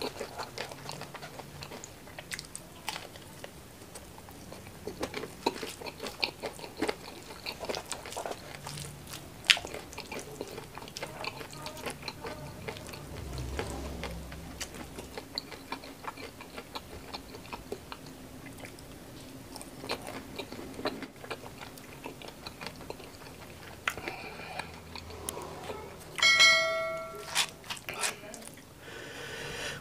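Crunching and chewing of crispy battered fried mushrooms, with many short crackly bites throughout. Near the end a short bright chime rings out, the loudest sound, from a subscribe-button notification effect.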